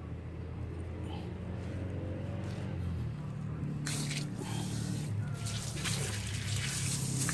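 Imperial high-pressure washer's electric pump motor humming steadily. About four seconds in, a loud hiss of water spraying out under pressure starts up.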